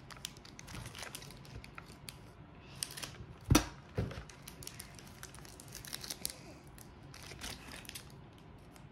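Foil trading-card booster pack wrapper crinkling and crackling in the hands as it is worked open with scissors. Two dull thumps come about three and a half and four seconds in.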